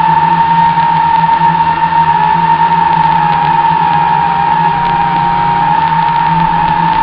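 WLToys V666 quadcopter's motors and propellers in flight: a loud, steady high whine with a low buzz beneath, the pitch wavering slightly.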